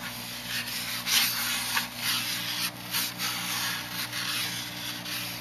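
A paintbrush scrubbing paint around a divided foam tray: irregular scratchy rubbing strokes, the loudest about a second in.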